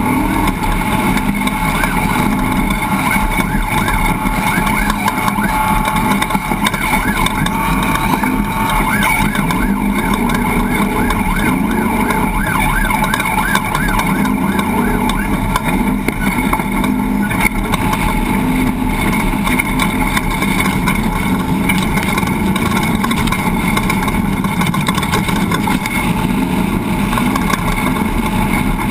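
A vehicle engine running steadily, with a rapidly warbling tone for several seconds partway through.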